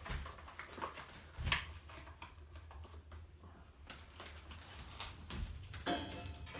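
Scattered knocks and rustles of gear being handled, with a short creak about six seconds in.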